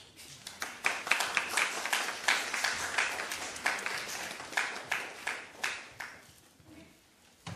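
Small audience applauding, the clapping thinning out and dying away about six seconds in.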